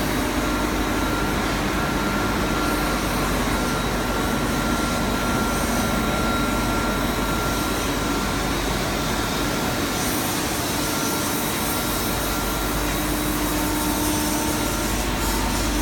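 CNC tool grinding machine running, a steady whirring noise with a faint high whine over it; after about thirteen seconds a somewhat lower whine takes over.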